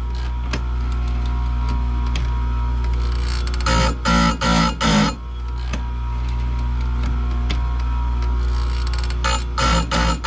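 Oregon bench chain grinder's motor running steadily with a low hum. About four seconds in, and again near the end, the spinning wheel is brought down onto a saw-chain tooth in a quick run of about four short grinding dabs.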